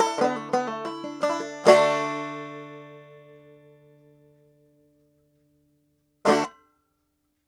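Clawhammer banjo playing the last notes of a tune, ending on a final struck chord about two seconds in that rings and fades away over a few seconds. Near the end comes one short, sharp noise.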